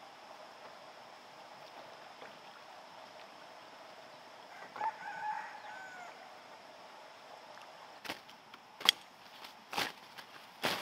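A rooster crows once around the middle. Near the end a knife chops through leafy plant stems in four sharp strikes, about one a second.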